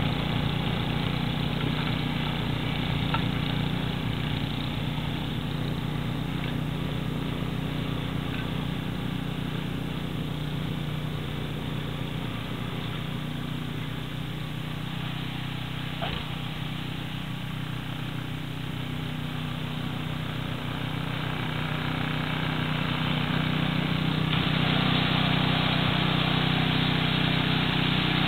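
Snow blower engine running steadily as it clears snow, fading as the machine moves away and growing louder again over the last few seconds as it comes back.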